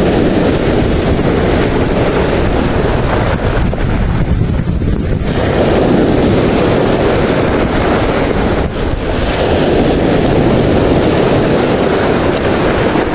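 Strong wind buffeting the microphone, a loud steady rush with brief lulls about four seconds in and again near nine seconds; sea surf may lie underneath.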